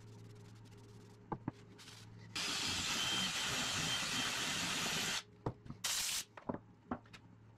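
Cordless drill boring into the end of an ash mallet handle, running steadily for nearly three seconds from about two seconds in. Then a few knocks as tools are set down, and a short blast of compressed air from a blow gun near the end.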